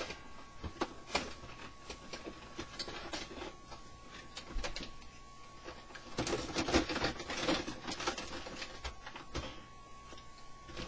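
Handling noise on a workbench: scattered clicks, knocks and rustling as things are moved about, busiest from about six to eight seconds in. Under it runs a faint steady high tone from the car radio tuned to a test signal.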